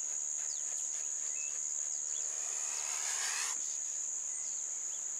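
Steady, high-pitched insect drone, with faint short chirps over it and a brief swelling hiss a couple of seconds in.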